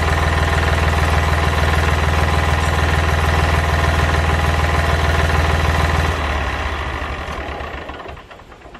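Mahindra tractor's diesel engine running steadily, then shut off about six seconds in, dying away over the next two seconds.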